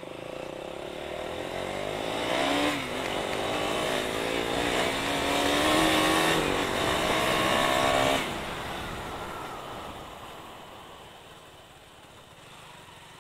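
Motorcycle engine pulling hard with wind rushing past: the revs climb, dip at a gear change about three seconds in, and climb again. At about eight seconds the throttle closes and the bike coasts, the engine note dropping and quieter.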